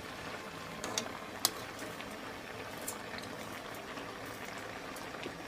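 Pot of macaroni boiling in water, a steady bubbling, with two light clicks about a second and a second and a half in.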